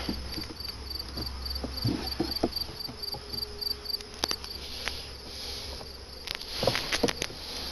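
A cricket chirping in an even pulse, about four chirps a second, fading out about halfway through. Over it, wooden hive frames knock and scrape as they are slid back along the box, with the sharpest knocks in the second half.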